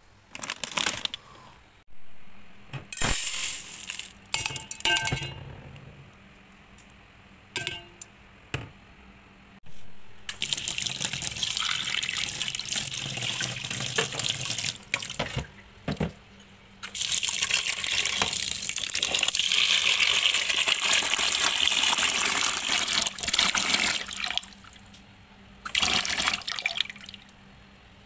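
Kitchen tap water running into a stainless steel sink and a pot of rice being rinsed, in two long spells through the middle and a shorter splash near the end. Before that come a string of short rustles and knocks.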